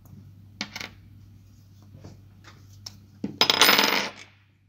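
Small metal parts of a 1:10 RC crawler axle, ball bearings and a steel axle shaft, being set down and clattering on a wooden table. There is a short clatter under a second in, faint clicks of handling, then a longer, louder clatter about three seconds in.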